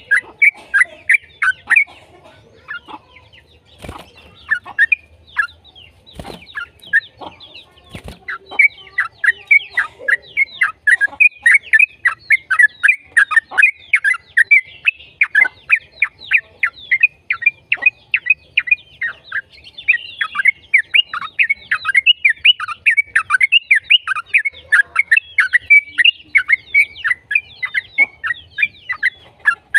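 Yellow-vented bulbul singing a long run of rapid, chattering notes: scattered phrases at first, then an almost unbroken fast stream from about eight seconds in.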